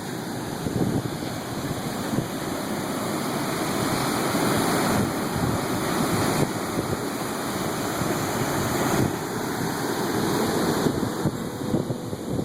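Ocean surf washing on the shore, with wind rumbling on the microphone. It swells a little in the middle and eases near the end.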